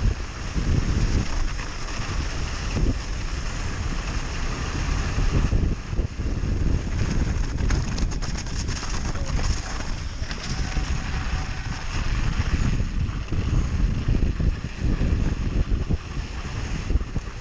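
Wind buffeting the microphone of a camera on a mountain bike descending fast, over the bike's rolling rumble. A run of clicks and knocks, the bike rattling over rough ground, comes between about six and ten seconds in.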